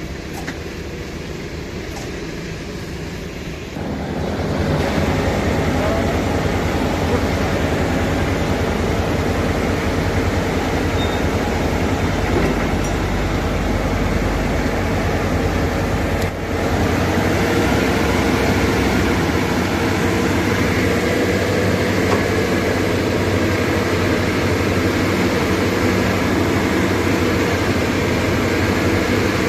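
Excavator's diesel engine running steadily, growing louder about four seconds in, with a brief dip about halfway through.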